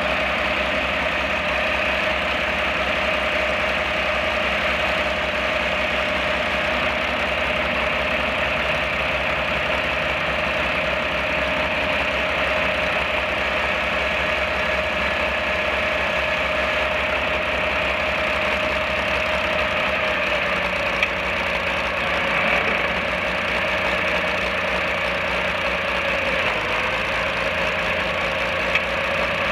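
1963 Farmall 706's six-cylinder gasoline engine running steadily, its pitch dipping slightly a few seconds before the end. Two brief sharp clicks come in the last third.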